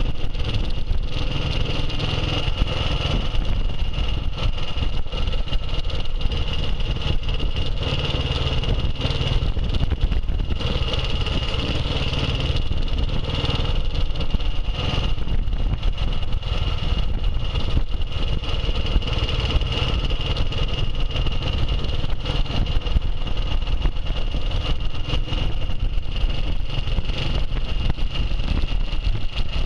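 A vintage motorcycle's engine running as it rides along at a steady speed, heard from the rider's seat, with a steady high whine running through it.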